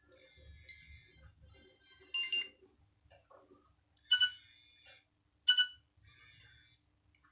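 Short electronic tones from a Nokia N73 phone's loudspeaker, in several separate bursts with gaps between them; the sharpest start about four and five and a half seconds in.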